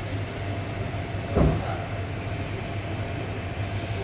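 A single knock about a second and a half in, over a steady low hum.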